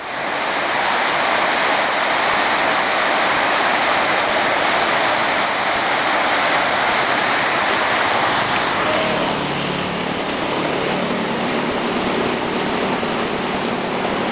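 Floodwater rushing fast down a narrow concrete storm drain: a loud, steady rush. The channel is running full with flash-flood runoff from torrential rain.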